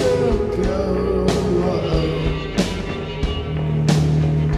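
Live psychedelic rock music with sustained instrument tones over drum hits that land about every second and a quarter.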